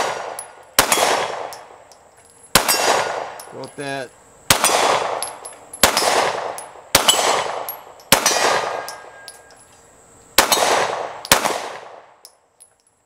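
Glock 19 9mm pistol, fitted in a Recover Tactical P-IX brace kit, firing eight unhurried shots about one to two seconds apart. Each shot is followed by a long ringing tail: the clang of steel targets being hit.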